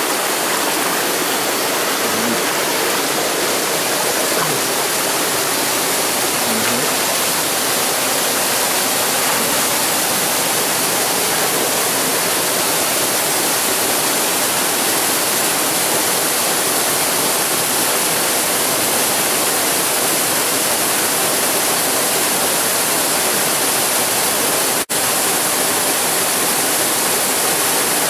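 Small jungle waterfall pouring into a rock pool: a steady, loud rush of water, broken by a split-second dropout near the end.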